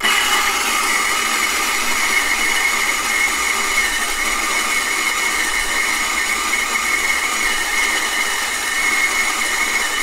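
Turin SD40 gear-driven conical burr coffee grinder starting abruptly and running steadily, a whining gearbox sound over the grind at about 82 decibels at 18 inches.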